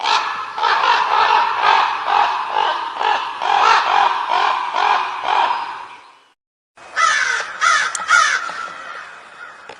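Common raven calling: a quick series of repeated harsh caws for about six seconds, a short break, then a few more calls that trail off.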